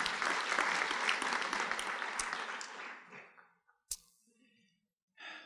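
Audience applauding, the clapping dying away about three seconds in, followed by a single sharp click.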